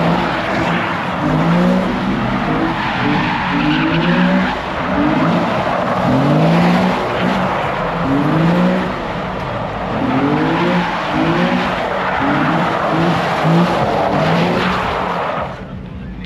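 A car doing smoky donuts: tyres screeching without a break while the engine is revved up and down again and again, about once a second or two. The noise drops away sharply near the end.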